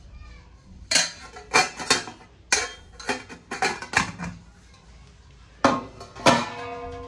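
Brass utensils clinking and knocking against each other in a string of about ten sharp metallic strikes. The last strike, near the end, leaves a steady bell-like ringing that holds on.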